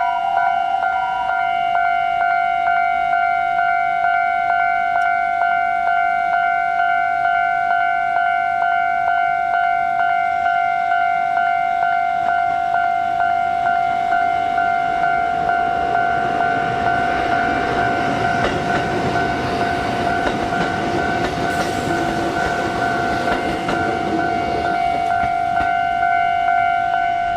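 Level-crossing warning alarm sounding one steady electronic tone with a regular pulse. About halfway through, an electric train, a former Keikyu car, rumbles over the crossing on the rails, rising and then fading.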